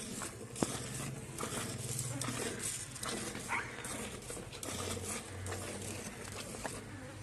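Hand milking a cow: jets of milk squirted from the teats hiss into a steel bucket partly filled with frothy milk, in an even rhythm of about two squirts a second.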